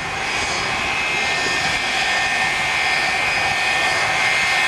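McDonnell Douglas MD-83's tail-mounted Pratt & Whitney JT8D turbofans running as the airliner taxis. The sound is a steady jet roar with a high whine of several held tones on top, growing slightly louder.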